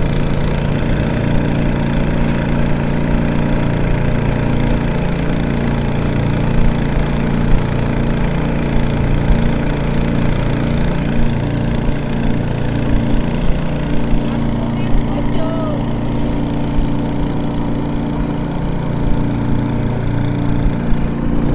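Boat engine running steadily under way, an even low drone with no change in speed.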